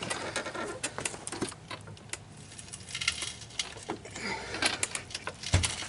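A hydraulic speed floor jack being pumped, its handle and linkage giving irregular metallic clicks and rattles, with a heavier knock near the end. The pump strokes are not lifting the car: the jack is failing, with a lot of play in it.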